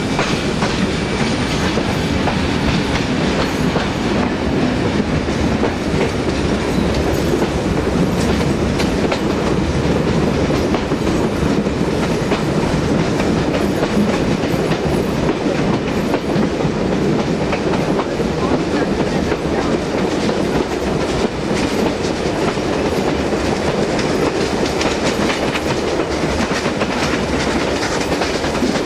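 Steam-hauled heritage passenger train running at speed, heard from an open carriage window: a steady rumble of wheels and carriages with continual clicking over the rail joints, the steam locomotives working ahead.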